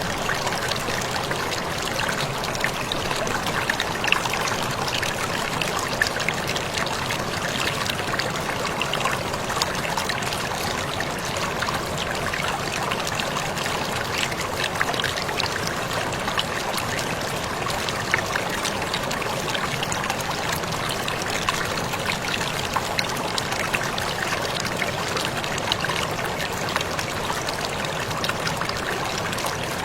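Waterfall: a steady rush of falling water, peppered with many small splashes and drips.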